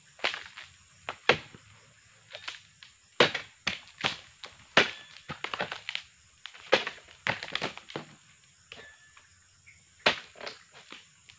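Oil palm pruning chisel (dodos) on a long pole chopping into the frond bases of a short oil palm: a series of sharp chops, irregularly spaced, about one a second, some in quick clusters.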